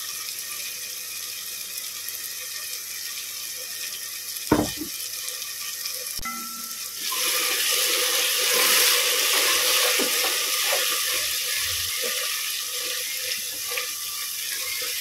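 Onion and tomato masala frying in a pot with a soft, steady sizzle. There is a single knock about four and a half seconds in. About seven seconds in the sizzle becomes much louder as the wet ground mint, coriander and green chilli paste goes into the hot oil, with light clicks of stirring.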